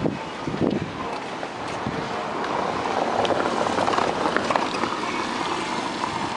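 A car passing close by at low speed on a wet cobbled street. Its tyre and engine noise swells over the middle few seconds and then eases off as it moves ahead.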